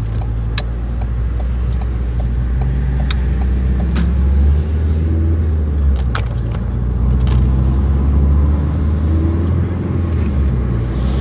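Car cabin noise while driving: a steady low rumble of engine and road, with a few scattered sharp clicks.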